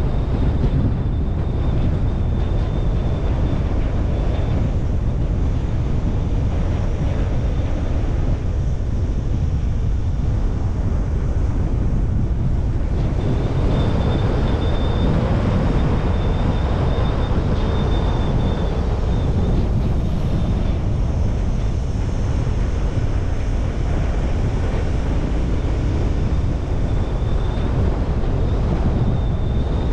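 A car driving along a road: steady low road and wind noise, with a faint thin high whine that comes and goes.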